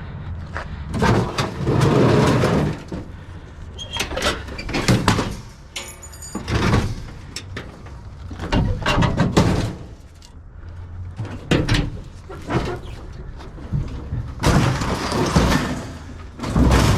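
Scrap being handled at a dumpster and truck: repeated metal clanks, scrapes and thumps in irregular bursts, with a brief quick rattle about six seconds in, over a steady low rumble.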